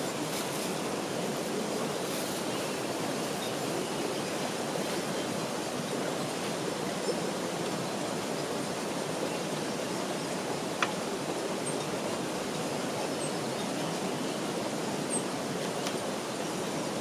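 Steady rushing of water, with a few faint ticks and one sharp click about eleven seconds in.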